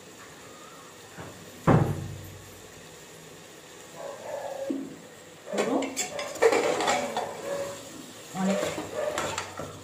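A metal spoon clanks once against an aluminium pressure cooker pot about two seconds in. From about four seconds in it scrapes and knocks around the pot as thick mutton is stirred in its masala, the cooking liquid dried off.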